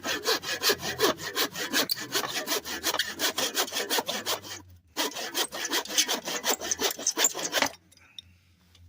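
Saw cutting through wood in quick back-and-forth strokes, pausing briefly about four and a half seconds in, then resuming and stopping near the end.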